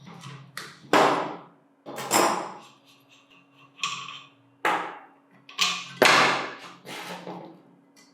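A series of about eight irregular knocks of varying loudness, each dying away briefly, over a steady low hum; the loudest come about a second in, about two seconds in and about six seconds in.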